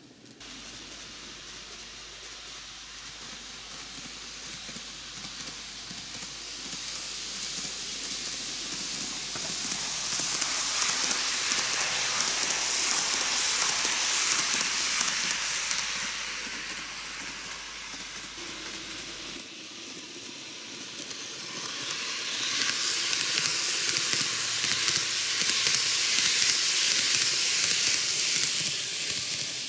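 TOMIX N-gauge Kintetsu 80000 series 'Hinotori' eight-car model train running on its track, a hissing rattle that swells twice as it passes the microphone, loudest about a third of the way in and again near the end.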